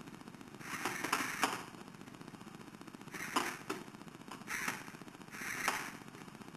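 Lego Technic walking robot dog's gears and plastic legs clattering in four short rattling bursts.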